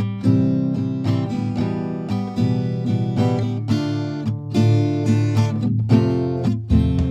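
Background music: an acoustic guitar picked and strummed, with a steady run of plucked notes.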